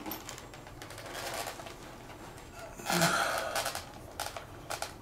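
A motorcycle helmet being pulled on over the head: its padding rubs and rustles against hair and skin, with a short breathy grunt about three seconds in. A few sharp clicks come near the end as the chin strap is worked.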